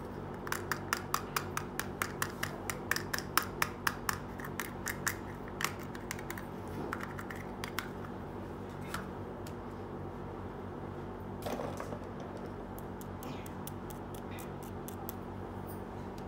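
Small plastic toy pieces clicking as they are handled, a quick run of sharp clicks at about four a second for the first few seconds, then scattered clicks and a brief scrape.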